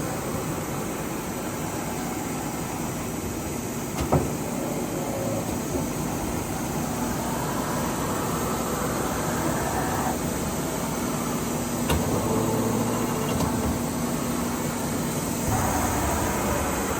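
Takisawa TC-3 CNC lathe running, a steady mechanical hum with a sharp click about four seconds in and another about twelve seconds in.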